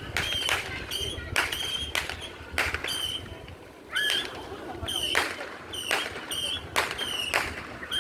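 Birds chirping: a quick, irregular run of short, sharp calls, two or three a second, over low background noise.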